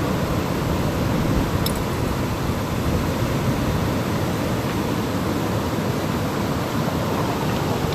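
River water rushing steadily, a constant even noise with no break, and a faint short click about two seconds in.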